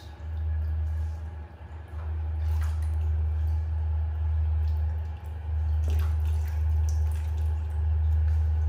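Light splashing and dripping of water in a shallow plastic baby bathtub, with a few short sharp clicks, over a steady low hum.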